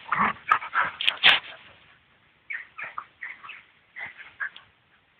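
An eight-month-old dog and an older dog play-fighting: a rapid run of loud yelping and growling noises for the first second and a half, then fainter, short whines about every half second until about four and a half seconds in.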